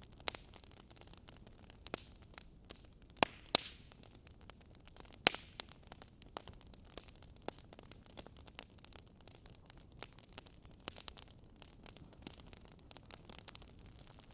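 Wood fire crackling in a fireplace: irregular small pops and clicks over a soft hiss, with a few louder snaps between about three and five seconds in.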